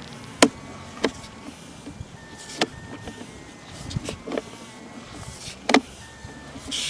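Sewer inspection camera and its push cable being worked through the sewer pipe: about five sharp, irregular knocks and clicks over a low background, with a short rustling swell near the end.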